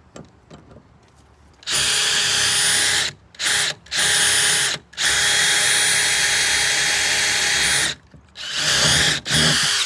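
Power drill with a titanium bit drilling out a metal rivet, its motor whining in about six trigger bursts, the longest about three seconds in the middle.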